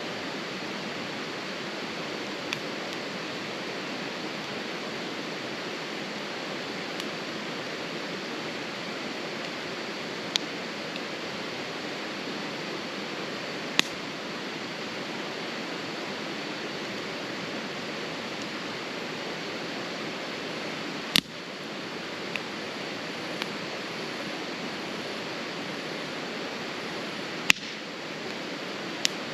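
Wood fire in a fire pit crackling, with sharp single pops at irregular intervals, two of them louder about two-thirds of the way through and near the end, over a steady even hiss.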